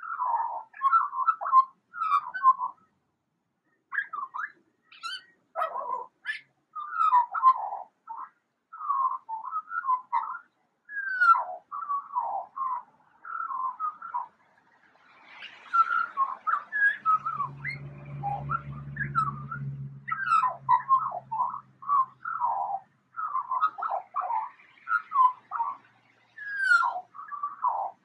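Eurasian magpie (Pica pica) mimicking a siren in runs of short whistled notes that bend in pitch, broken by brief pauses. A low hum sounds under the calls in the middle.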